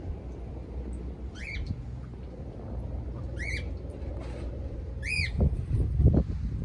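Caged parrots calling: three short squawks, about two seconds apart. A low rumble on the microphone runs underneath and gets louder, with a couple of bumps, near the end.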